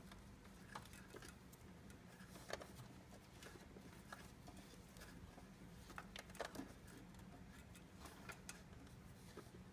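Faint, scattered small clicks and taps of hands working plastic power-supply connector parts and wires, over a faint steady hum.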